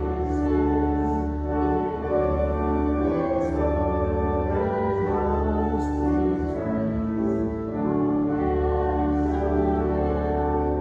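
Organ music: slow sustained chords over long held bass notes.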